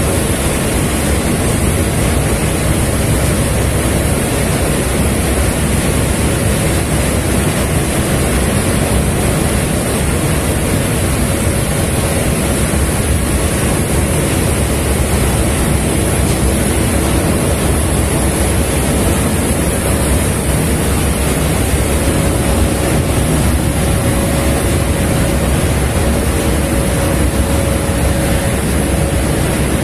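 Steady rushing of wind and water with the low drone of a ship's engine, heard from aboard a vessel under way. The noise is even throughout, with no sudden sounds.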